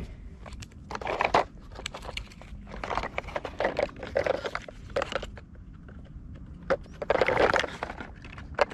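Hard plastic of a toy concrete mixer truck being handled while a loose wheel is pushed back onto its axle: irregular scrapes and clicks, in clusters.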